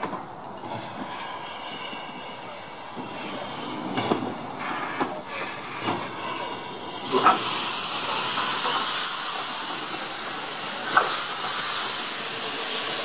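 Small steam tank engine moving slowly past at close range, steam hissing from its open cylinder drain cocks, with a few knocks. The hiss swells loud about seven seconds in as the engine draws alongside.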